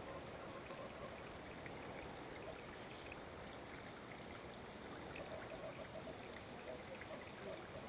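Faint, steady trickle of water in a garden koi pond, with a few small ticks and plops at the surface.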